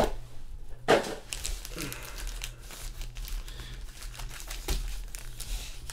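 Foil trading-card packs crinkling and rustling as they are handled, with irregular small clicks and a sharper click about a second in.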